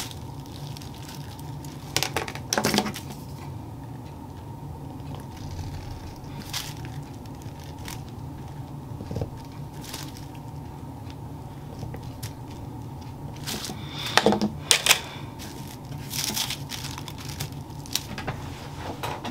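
Tracing paper and tissue pattern paper rustling as a clear plastic ruler is set down and moved and a grain line is drawn, in scattered short bursts of handling noise over a steady low hum.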